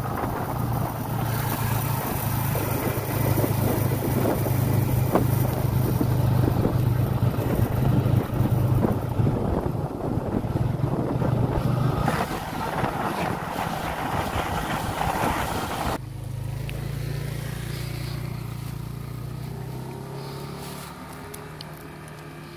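Motorcycle engine running steadily while riding, with wind rushing over the microphone. About two-thirds of the way through the sound cuts suddenly to a much quieter low hum that fades away.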